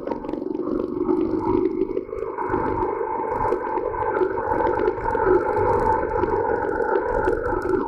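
Bajaj Boxer motorcycle's single-cylinder four-stroke engine running at a steady speed while being ridden: a constant drone with a rough low rumble underneath and small clicks and rattles over it.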